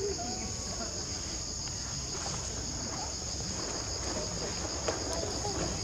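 Steady, high-pitched drone of insects chirring in the forest, with a short click about five seconds in.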